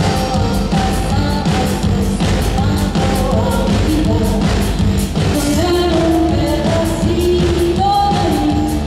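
Live indie rock band playing, with a woman singing the melody over a steady drum beat and amplified instruments.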